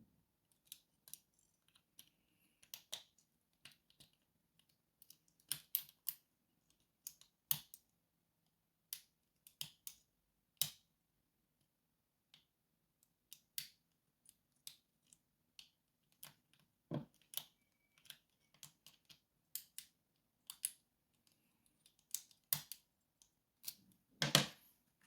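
Lock pick and tension wrench working the pins of a pin-tumbler lock that has spool pins: small, irregular metallic clicks and ticks as pins are lifted, set and dropped, with a louder click near the end.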